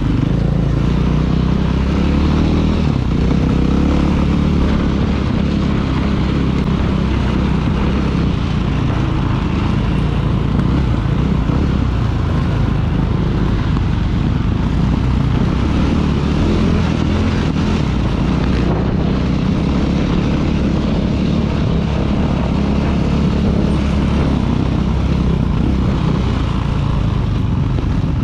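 2016 KTM 500 EXC's single-cylinder four-stroke engine running steadily under way, its pitch changing little.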